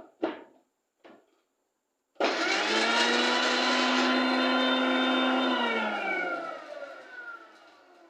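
A few short knocks, then an electric grinder's motor switches on about two seconds in. It runs at a steady pitch for about three and a half seconds, then is switched off and winds down with a falling pitch.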